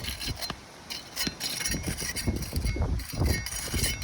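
Irregular clinks, taps and scrapes of a metal tool working at nails in asphalt roof shingles, over an uneven low rumble.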